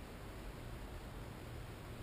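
Steady background hiss with a low hum underneath; no distinct tool or part sounds.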